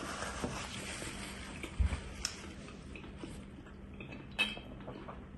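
Quiet mealtime sounds over a faint steady hum: a few soft clicks and knocks at the table, then a brief gulping, bottle-handling sound about four seconds in as someone drinks from a plastic soda bottle.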